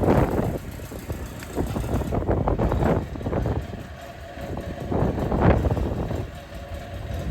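Sea water washing against a fishing boat's hull, a rushing sound that swells every two to three seconds.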